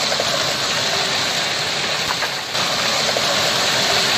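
Steady noise of a heavy storm downpour of rain and hail pelting down, shifting in character about two and a half seconds in.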